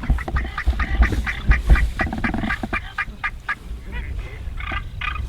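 Turkey calling: a fast run of short, repeated yelping notes.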